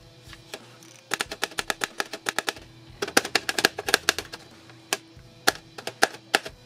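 The tip of a small screwdriver clicking rapidly against the plastic-wrapped tops of soda cans as it jabs to puncture the shrink wrap. It comes in two quick runs of taps, then single taps spaced out.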